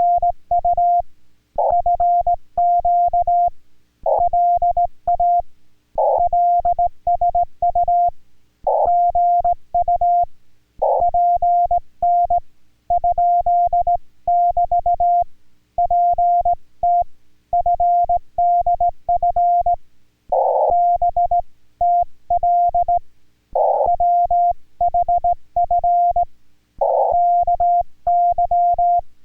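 Morse code on an amateur radio transceiver: a single steady mid-pitched beep keyed on and off in dots and dashes, sent as groups with short pauses between them, spelling out Korean-language Morse in a CW contact. Faint clicks sound under each element.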